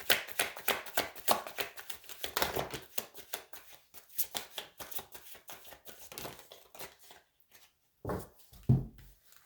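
A deck of tarot cards being shuffled by hand: a fast run of crisp card flicks that thins out and stops after about seven seconds, followed by two dull thumps near the end.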